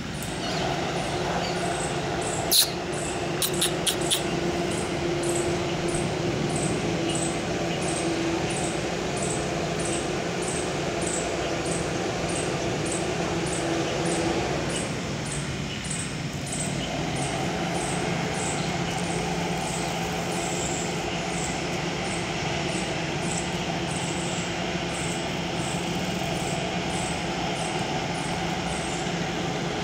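Steady mechanical hum made of several held tones, dipping briefly about halfway through, with a faint high chirp repeating about once a second and a few sharp clicks about three to four seconds in.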